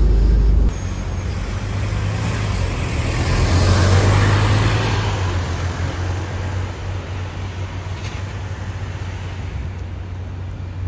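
Scania K230UB single-deck city bus's diesel engine pulling away from a stop: a loud low rumble cuts off abruptly under a second in, then the engine's steady hum swells to a peak about four seconds in and slowly fades as the bus drives off.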